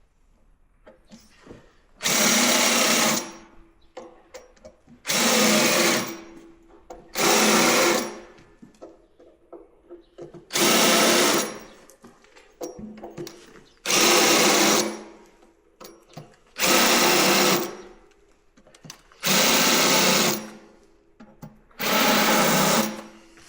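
Power drill with a countersink bit run in eight short bursts of about a second each, countersinking screw holes in an oak whisky barrel, with small clicks between the bursts as the bit is moved from hole to hole.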